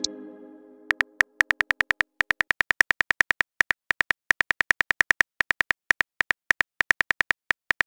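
Phone on-screen keyboard clicks as a text message is typed: a quick, uneven run of short ticks, several a second with brief pauses. The tail of a previous tone fades out in the first second.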